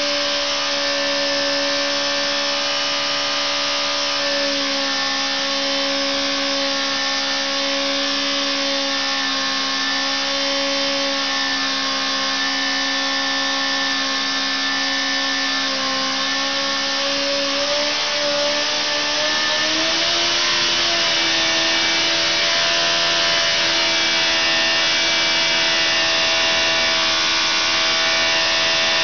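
Engine running at a steady speed on a dynamometer test bed inside the test cell: a steady pitched engine note over a loud hiss. About eighteen seconds in, the pitch rises over a couple of seconds and then holds at the higher speed.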